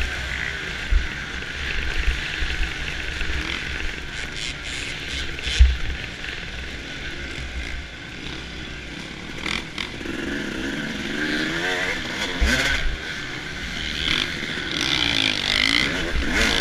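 Suzuki RM250 two-stroke single-cylinder motocross engine running hard under race load, its pitch rising and falling as the throttle opens and closes. Wind rushes over the on-bike microphone, with a few dull low thumps from the bike hitting the track.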